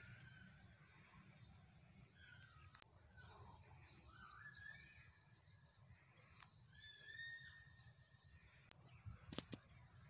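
Faint outdoor birdsong: scattered short chirps and whistled notes from small birds over a low rumble of wind, with a few sharp clicks, the loudest just before the end.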